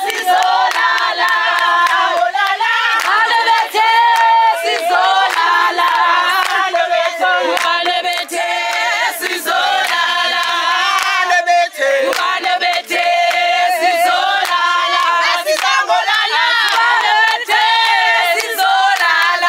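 A crowd of people singing and shouting together, many voices at once, with sharp claps scattered through.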